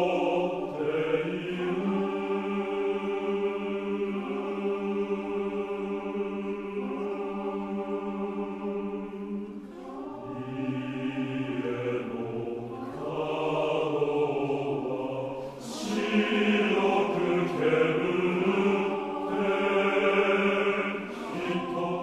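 Men's choir singing unaccompanied in long held chords, with a short break about ten seconds in where the low voices come in lower.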